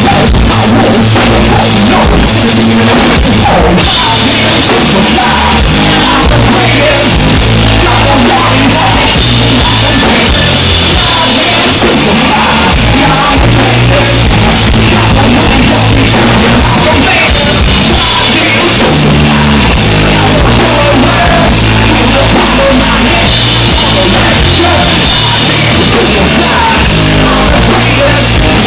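Rock band playing loud and live: electric guitar and drum kit driving a steady beat, with a singer on a microphone.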